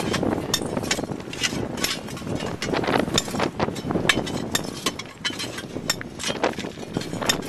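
Wind rumbling on the microphone, with many irregular sharp clicks and knocks of stones shifting and crunching underfoot on a shingle bank.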